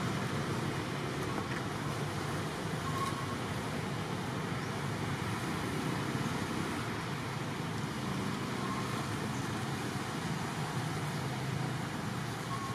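Steady outdoor background noise, an even rushing hiss with no distinct events, and a few faint brief chirps.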